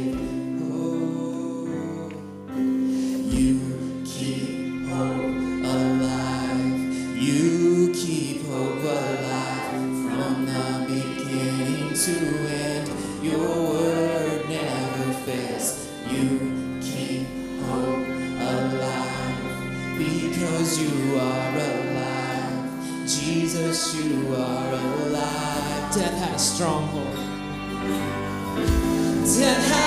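Live church worship band playing a song: sustained keyboard chords with a violin and electric guitar.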